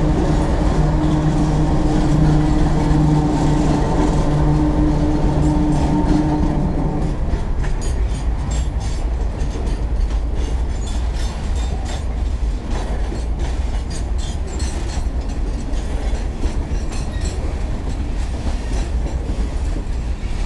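CSX freight train passing close by. For about the first seven seconds the diesel locomotive's engine is heard as a steady drone as the last unit goes by. Then the engine drone drops away, leaving the rumble and clickety-clack of hopper cars rolling over the rail joints.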